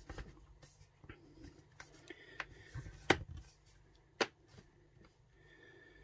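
Hands handling an HP Omen X 2S laptop, with a few light clicks and taps from its case; the two clearest come about three and four seconds in.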